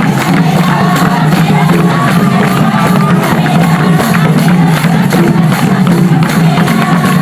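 Loud music with a steady beat and a wavering melody, with crowd noise underneath.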